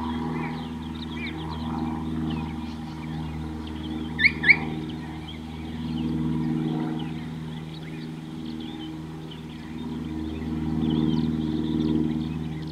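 Birds chirping in the bush, with two louder, sharper calls in quick succession about four seconds in, over a steady low hum that swells and fades every few seconds.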